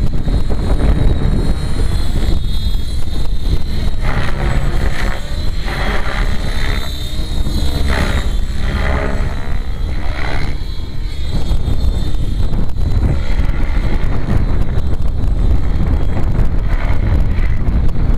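Flybarless 700-size electric RC helicopter flying overhead, its rotor sound sweeping up and down in pitch as it passes. Heavy wind rumble on the microphone underneath.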